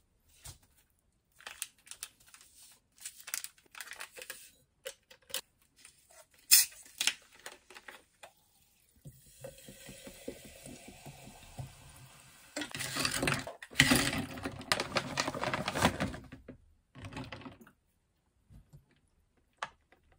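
Light clicks and knocks of things being handled, then sparkling water poured from a plastic bottle into a glass, a steady splashing rush that grows louder partway through and stops after about seven seconds.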